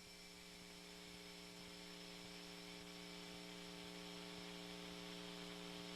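Faint, steady electrical hum, a low buzzing tone with several overtones, over a light hiss.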